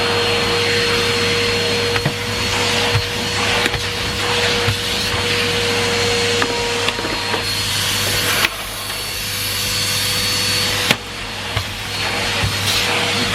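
Numatic Henry Pet cylinder vacuum cleaner running steadily, a constant motor whine under the rush of suction. A few sharp knocks come from the floor tool, and twice the rush of air drops suddenly.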